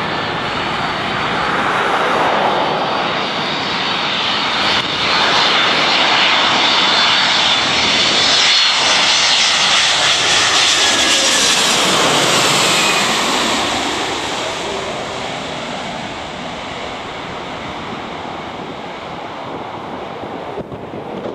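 Twin-engine jet airliner on final approach. Its engine noise builds as it flies low overhead, peaks about ten seconds in with the pitch sliding down as it passes, then fades as it heads away to the runway.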